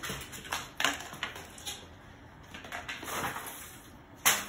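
Cardboard packing and metal grill parts being pulled out of a box and handled: rustling and scraping of cardboard with scattered light knocks, and a sharper knock near the end.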